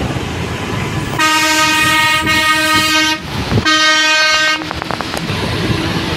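A vehicle horn sounding two steady single-pitched blasts, a long one of about two seconds and then a shorter one, over the low rumble of a vehicle on the move.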